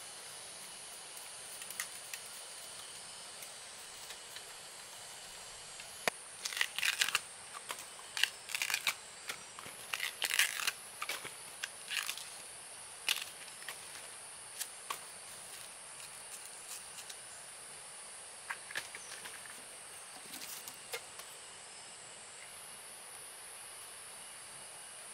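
Husk sheaths being torn and peeled off young bamboo shoots by hand: a run of crackly tearing and snapping sounds. They come thickest a few seconds in and grow sparser toward the end.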